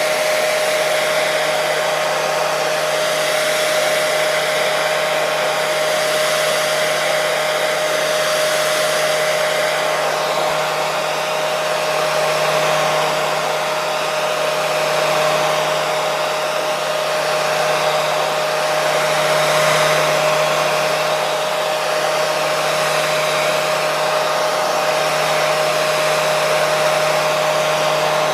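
Hair dryer running steadily: an even rush of blown air with a steady motor whine underneath.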